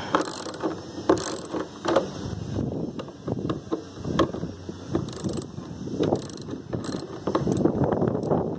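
Socket ratchet wrench clicking in short bursts, about one a second, as its handle is swung back and forth to loosen the side-mirror mounting screws.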